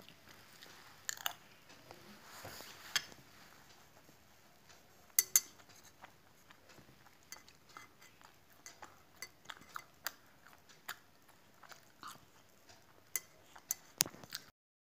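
Steel spoon clinking and scraping against a metal plate as a child eats, a scatter of sharp clinks with the two loudest about five seconds in. The sound cuts off abruptly just before the end.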